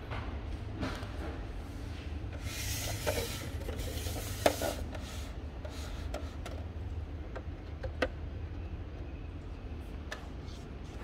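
Rubbing and handling noises with a few sharp clicks, the loudest about four and a half seconds in and another about eight seconds in, over a low steady hum.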